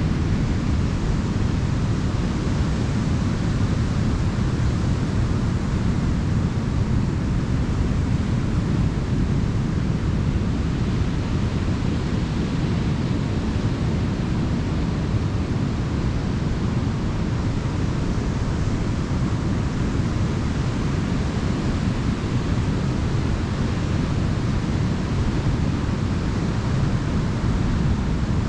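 Ocean surf on a beach: breaking waves washing in as a steady, even rush with a deep low rumble.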